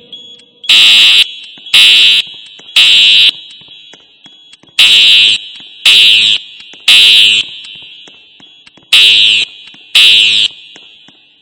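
Fire alarm horns sounding the temporal-three evacuation signal: loud, high half-second blasts in groups of three with a pause between groups (three, three, then two before the voice message resumes), each blast trailing off in echo.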